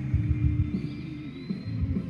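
Background music carried by low bass notes.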